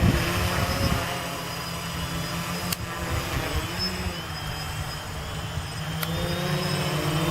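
Gaui 500X quadcopter's electric motors and propellers whining in flight, the pitch shifting up and down as the motors correct against gusty wind, with wind rumbling on the microphone.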